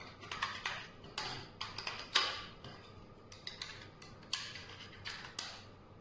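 A series of irregular sharp clicks and taps in small clusters, the loudest about two seconds in.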